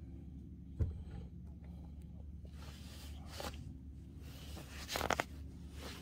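Handling noise close to the microphone: a single thump about a second in, then rustling with a few sharp clicks, the loudest a cluster near the end.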